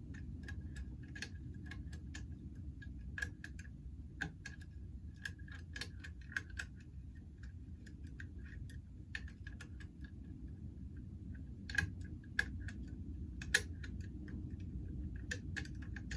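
Small, irregular metallic clicks and light scrapes of a lever lock pick and tension tool working the levers of a 5-lever mortice lock, some clicks ringing briefly. A low steady rumble lies underneath.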